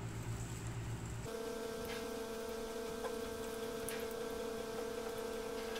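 Steady background hum that switches abruptly to a higher-pitched hum about a second in, with a few faint ticks.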